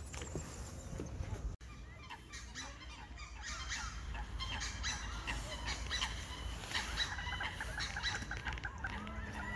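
Many waterfowl calling together, a dense run of short, overlapping goose-like honks that builds up from about three seconds in.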